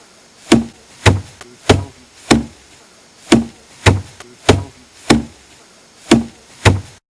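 A steady series of heavy knocks, roughly one every 0.6 s, ten in all with one short pause a third of the way through; the sound cuts off abruptly near the end.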